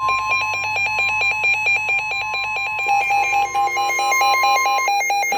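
NOAA Weather Radio warning alarm tone: one steady high tone that cuts off near the end, sounding over rapid pulsing electronic alert beeps. It announces a severe thunderstorm warning.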